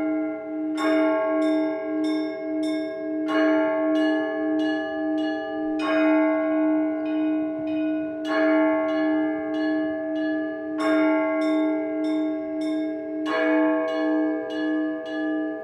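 Orthodox church bells rung by hand in a repeating peal. Small bells are struck in quick succession, with a fuller stroke about every two and a half seconds, over a steady ringing hum that pulses about twice a second.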